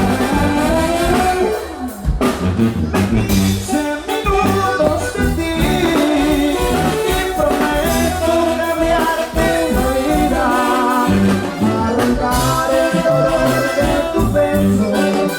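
Live Mexican banda playing an instrumental passage: a brass melody over a repeating tuba bass line.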